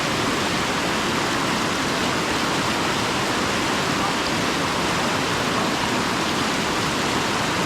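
Rushing river water: a steady, even hiss that does not change.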